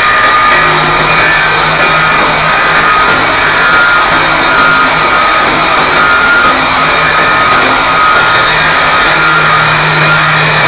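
DongCheng DZZ190 diamond core drill running steadily under load, its motor whining as the core bit grinds dry into concrete.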